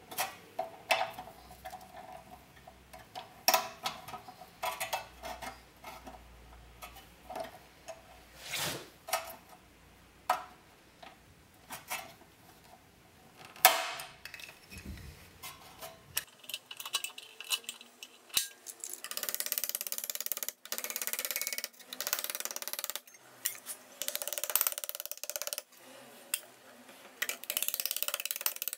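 Stainless steel container and hand rivet tool handled, with scattered sharp metallic clicks and knocks. After a cut, a tool scrapes against sheet metal in a run of rasping strokes with short breaks between them.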